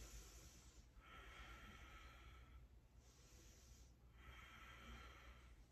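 Faint, slow breathing: two long, even breaths over a low steady hum.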